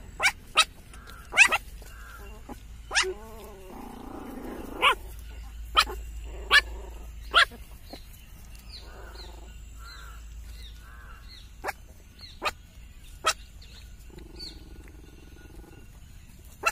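Small puppies yelping and squealing in about a dozen short, sharp high cries, with some softer low grumbling between them as they tussle.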